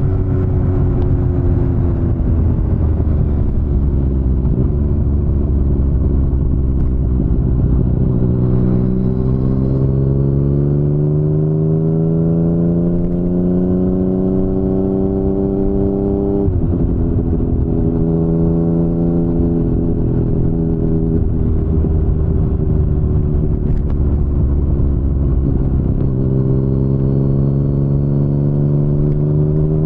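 2019 Yamaha MT-09's inline-three engine through an Akrapovic full-system exhaust, pulling steadily up through the revs. The pitch drops suddenly about halfway through, at an upshift, then holds steady and starts climbing again near the end.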